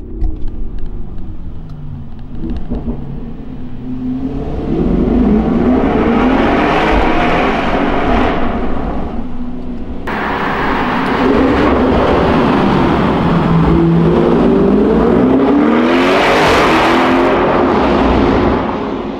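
Audi RS6 Avant Performance twin-turbo V8 with an Akrapovic cat-back exhaust accelerating hard in a road tunnel, the engine note climbing in pitch. There are two pulls, with a sudden break about halfway.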